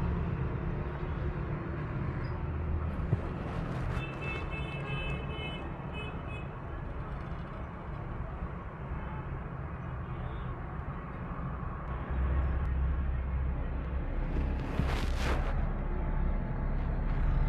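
Steady background hum and murmur of a large stone building, with a few faint high tones about four to six seconds in and a brief rushing sound about fifteen seconds in.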